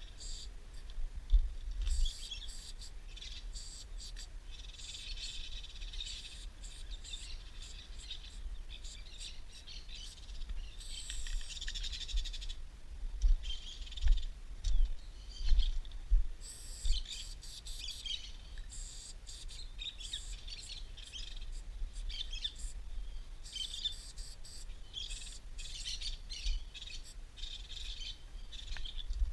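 Aerosol spray-paint can hissing in repeated short bursts as paint goes onto a train wagon, with birds chirping and trilling throughout and low bumps on the microphone.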